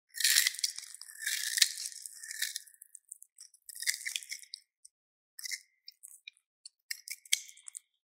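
Knife blade scraping and shaving a bar of crumbly soap held in the palm, a crisp crunching as flakes break away. One long stroke runs through the first three seconds, then several short scrapes follow.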